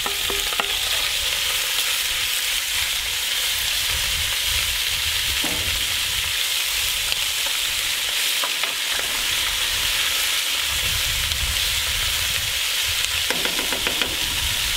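Diced venison searing in hot rapeseed oil in a cast-iron Dutch oven, giving a steady sizzle, with a few light knocks of a wooden spoon as the meat is stirred.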